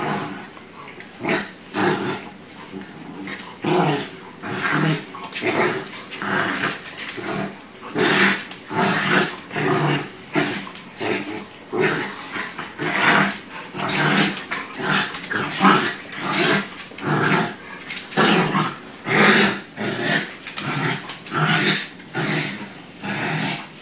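Dogs growling while they play-fight: short, rough growls in quick succession, about one to two a second.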